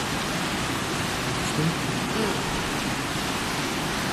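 A steady, even hiss with no speech, plus a brief faint low sound about one and a half seconds in.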